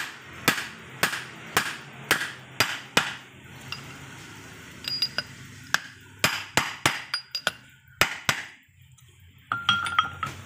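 Hammer blows on a metal drift, about two a second, driving a new ball bearing onto a gearbox shaft, in two runs with a pause between them. Near the end comes a brief ringing metal clink.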